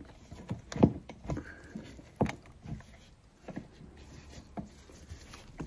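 Irregular knocks, taps and clicks of hands and fittings against the back of a basin and its pipework as the tap connections are refitted by feel. The loudest knocks come just under a second in and a little over two seconds in.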